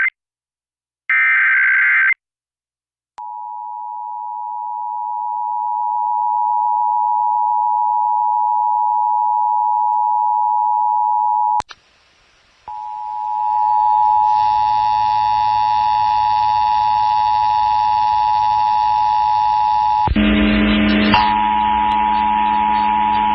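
Emergency Alert System broadcast signals. A short, shrill data burst of the SAME digital header sounds about a second in. It is followed by the EAS two-tone attention signal, a loud steady dual tone that fades up, drops out briefly about halfway, then resumes layered with further steady tones and, near the end, a lower buzz.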